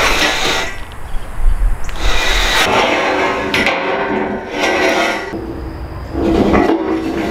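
Rusty steel pipes being dragged over one another and set down on gravel, scraping and clanking in repeated bursts.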